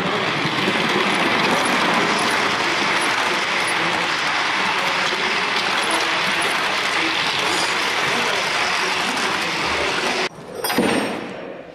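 Electric model train running along the layout track: a steady rolling rush of small wheels on the rails. It cuts off abruptly about ten seconds in.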